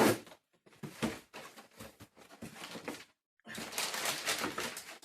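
A package being opened by hand: scattered crackles and rustles of packaging, turning to denser rustling about three and a half seconds in.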